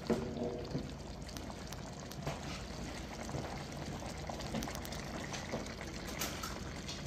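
Pork trotter and tomato stew bubbling steadily in the pot on high heat, with a few light clicks.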